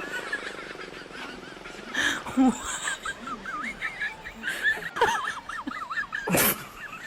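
High-pitched animal squeaks and chirps, many short wavering calls in quick succession, with two louder, harsher cries about two seconds in and near the end.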